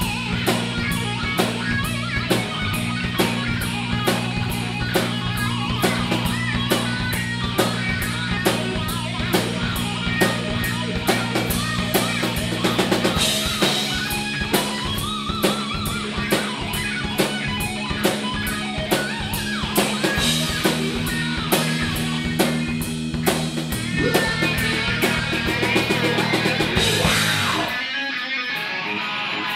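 A rock band playing live: electric guitar chords over a steady drum-kit beat with cymbal hits. Near the end the drums stop and the guitar rings on alone.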